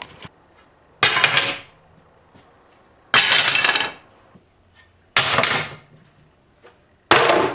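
Cordless driver driving screws into a small wooden frame of thin strips, in four short bursts about two seconds apart.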